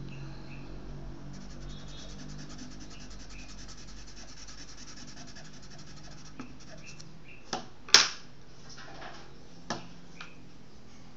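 Charcoal pencil tip scraped and rubbed against paper, grinding charcoal into a small heap of powder: a fast, fine scratching for a few seconds, then several sharp knocks, the loudest about eight seconds in.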